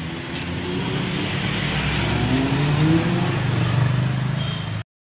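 Vehicle engine running in street traffic, accelerating with its pitch rising about two to three seconds in. The sound cuts off abruptly near the end.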